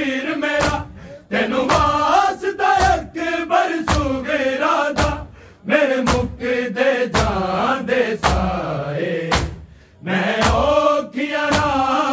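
Men's voices chanting a Punjabi noha in unison, line by line with short breaths between lines, over steady hand strikes of matam (chest-beating) about every two-thirds of a second.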